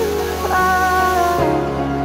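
Background music: held chords with a melody line, changing about one and a half seconds in.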